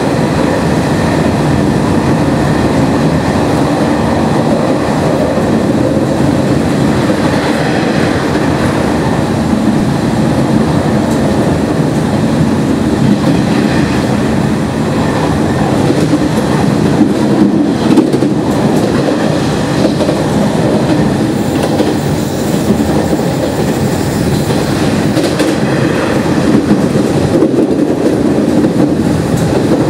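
A Nishitetsu 5000 series electric train running along the line, heard from inside the car. There is a steady rumble of wheels on rail, with a few sharp clickety-clack knocks from rail joints in the second half.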